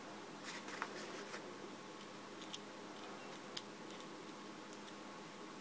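Faint clicks and light metal ticks of small metal construction-set parts, a bolt and a nut being handled and fitted together by hand: a short cluster of clicks about a second in, then a few single sharp ticks, over a steady low hiss.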